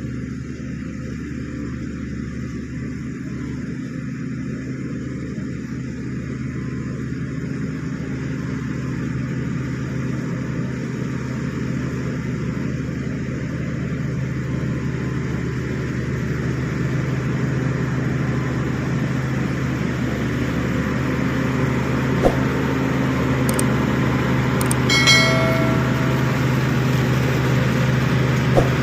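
Shantui SD16 bulldozer's diesel engine running steadily, growing gradually louder, with a short ringing sound about 25 seconds in.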